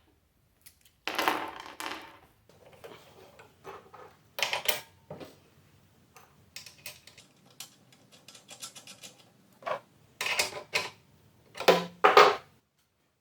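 Irregular metal clanks and rattles, as of steel pieces and tools being handled and set down on a workbench, with the loudest knocks about a second in and near the end.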